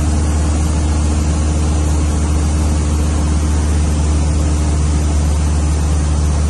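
Cessna 152's four-cylinder Lycoming piston engine and propeller running steadily, heard inside the cockpit as a loud, even drone.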